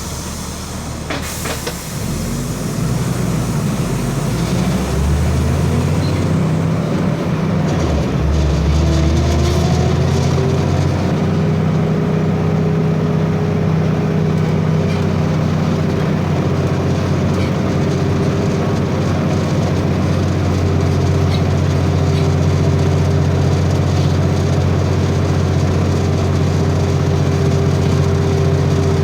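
Volkswagen 17.230 EOD articulated bus's turbodiesel engine pulling, its note rising and growing louder over the first ten seconds or so and then holding steady, with the turbocharger's steady whine ('singing turbo') above the engine.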